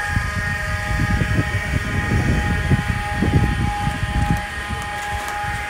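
Wind rumbling on the microphone in uneven gusts over a steady, high-pitched machine whine made of several held tones.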